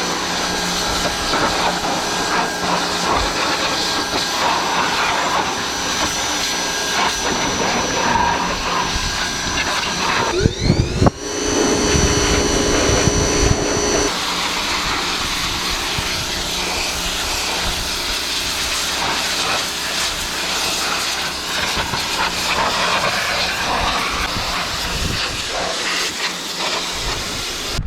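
Pressure washer running and spraying with a steady hiss and motor hum. About ten seconds in, the motor cuts out briefly and spins back up with a rising whine.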